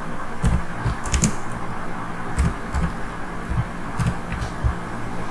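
Typing on a computer keyboard: about a dozen irregular key clicks over a steady low hum.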